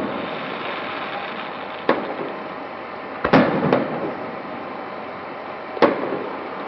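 Aerial firework shells bursting with sharp bangs, four in all, roughly two seconds apart, the second pair close together, over a steady background of noise.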